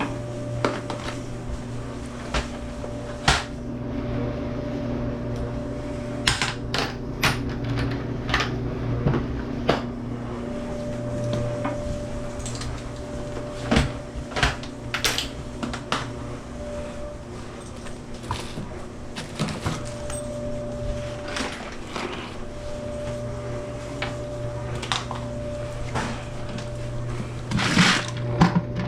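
Scattered clicks, clacks and knocks of dryer parts and panels being handled, over a steady low hum.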